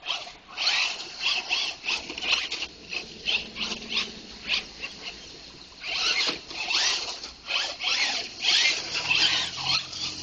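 Traxxas Slash RC truck driven in short throttle bursts through mud, its motor whining up and down in pitch as the tyres spin. Near the end a low steady hum comes in underneath.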